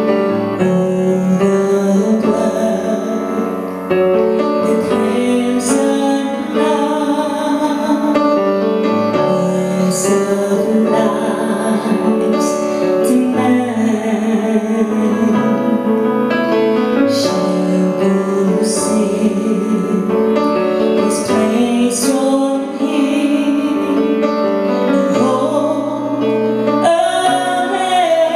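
A woman singing a worship song into a microphone, with piano accompaniment.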